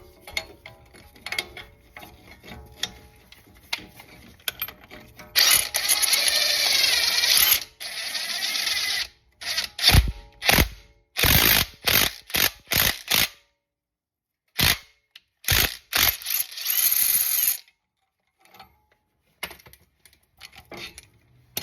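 Ratchet clicking as a ratcheting tool pushes the brake caliper pistons back into their bores to make room for new pads. It comes in long fast runs of clicks and in separate single strokes.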